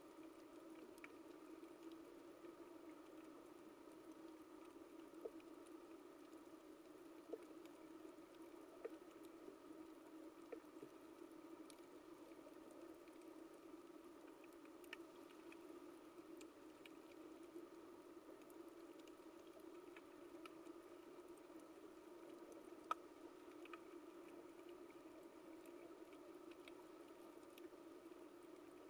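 Faint underwater coral-reef ambience: a steady low hum with scattered, irregular sharp clicks, one louder click about 23 seconds in.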